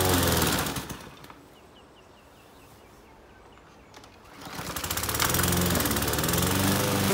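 Victa petrol push mower's engine dying away under load about a second in, as it stalls in overgrown grass, leaving a few seconds of quiet with faint bird chirps. The engine sound then builds back up from about four and a half seconds in and runs steadily.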